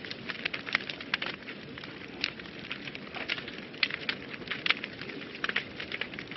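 Wood fire burning in a fireplace, crackling and popping irregularly over a low steady hiss of flame.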